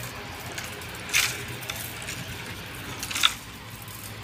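A long wooden pole striking the branches of a ber (jujube) tree to shake the fruit down: two short, sharp knocks about two seconds apart.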